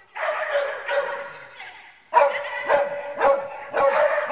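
Dog barking repeatedly in quick runs of short barks, with a brief pause about halfway, echoing in a large hall.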